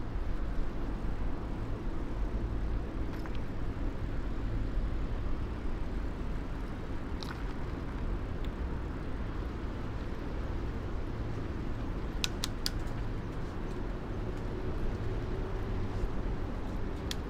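Steady low rumble of riding noise from a camera fixed to a moving bicycle, with a few light clicks and rattles about twelve seconds in.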